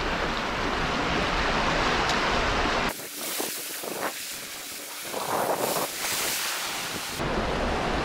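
Sea swell washing over shoreline rocks, with wind rumbling on the microphone. About three seconds in the low rumble drops away and a brighter hiss of water takes over, until the rumble returns near the end.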